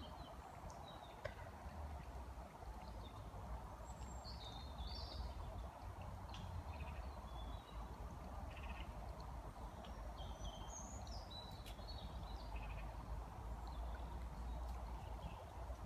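Small birds chirping and calling here and there in short high notes, over a steady low rumble of outdoor background noise.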